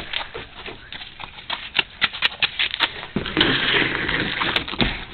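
Running footsteps of a child sprinting toward an iced-over porch deck, about three or four steps a second. About three seconds in they give way to a steady scraping hiss of shoes sliding across the ice, which lasts about two seconds.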